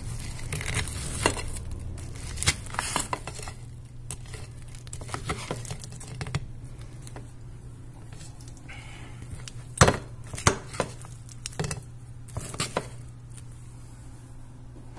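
A metal fork clinking and scraping against a ceramic plate of charred steak in a series of sharp, irregular knocks, the loudest a pair about ten seconds in, over a steady low hum.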